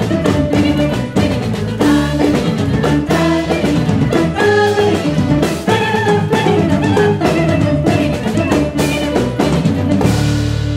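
Large jazz ensemble with a group of singers and drum kit playing a busy passage full of drum hits. About ten seconds in the band strikes a final accented chord that rings on.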